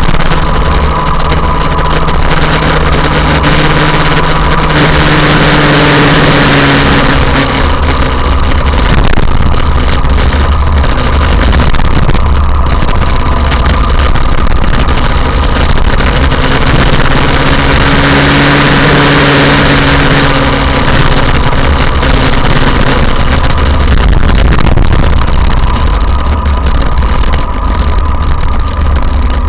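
Motorcycle running at road speed, its engine note under a loud, steady rush of wind and road noise. The engine pitch shifts twice, about five seconds in and again a little past halfway.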